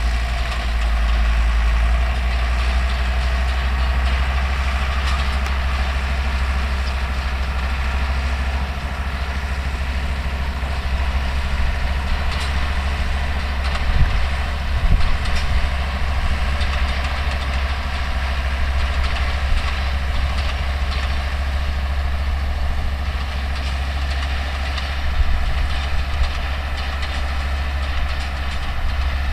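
Older Deutz tractor running steadily while pulling and driving a New Holland 644 round baler, the engine's drone mixed with the baler's mechanical clatter. A few louder knocks come about halfway through and again near the end.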